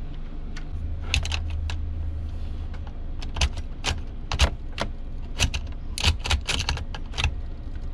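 Metal clicks and clinks of an en bloc clip of cartridges being handled and pressed at the open action of an M1 Garand rifle, many separate sharp clicks, some in quick runs, over a low steady hum.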